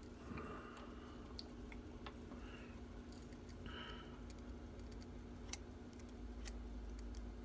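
Faint scattered clicks and scratches of a small knife blade cutting into a vulcanized silicone rubber mold, over a steady low hum.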